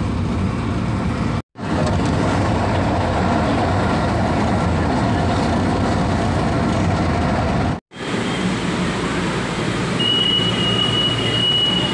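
Running noise of a light-rail train heard from inside the car, steady, broken by two abrupt edit cuts. After the second cut the sound is of a station platform beside the train, and a steady high tone comes in near the end.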